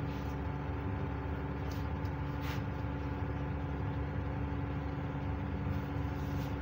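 Gas stove burners under a pan of potatoes at a rolling boil: a steady low rumbling drone, with a couple of faint clicks about two seconds in.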